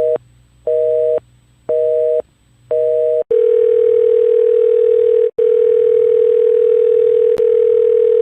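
Telephone busy signal, a two-tone beep pulsing on and off about once a second three times, then switching to a steady telephone dial tone a little past three seconds in. The dial tone breaks off briefly once and has a faint click near the end.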